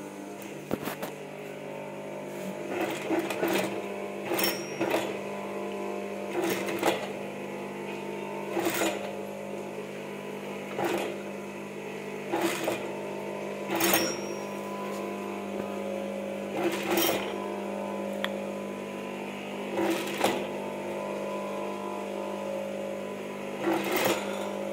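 Industrial sewing machine stitching in short bursts of about a second, roughly every two seconds, over a steady hum, as lace trim is sewn around a curved blouse neckline.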